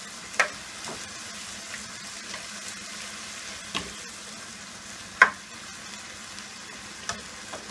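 Chicken and chopped tomatoes sizzling steadily in a non-stick pan while being stirred with a spatula, with a few short scrapes of the spatula against the pan, the loudest about five seconds in.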